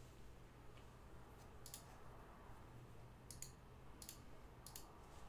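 A few faint, scattered clicks of a computer mouse and keyboard over near-silent room tone.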